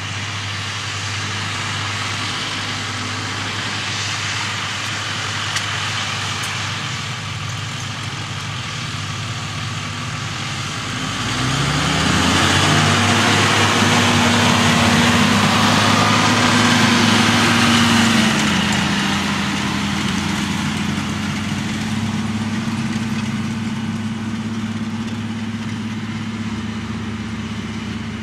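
Diesel farm tractor engine working in a field while pulling a seed drill, under a steady rushing noise. About a third of the way in the engine note rises and it grows louder for several seconds as the tractor passes close, then settles a little lower.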